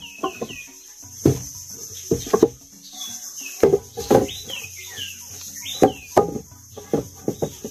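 A steady high insect drone with short runs of quick falling bird chirps, over irregular knocks and thumps. Everything cuts off suddenly near the end.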